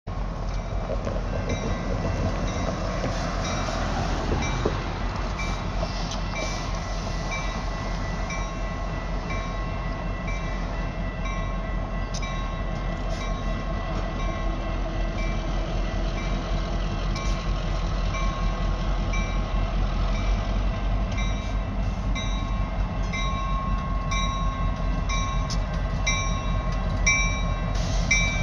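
Railroad crossing warning bell ringing over and over, with flashing signals active, over a steady rumble.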